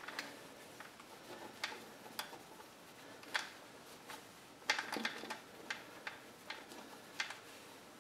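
Light, irregular clicks and taps of a plastic tail light lens being handled and turned over for inspection, the loudest a few seconds in.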